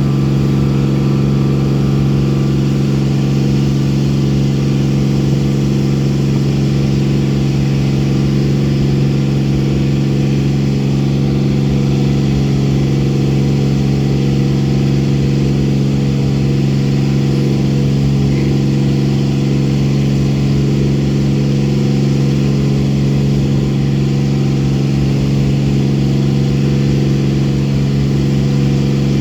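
Boat engine running at a steady speed, a constant droning hum with no change in pitch or loudness.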